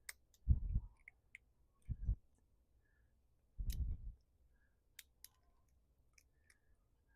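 Small clicks and a few short low scrapes of a hand tool and metal parts, as the smushed edges of the screw holes in a soft-metal carburetor part are cleaned up.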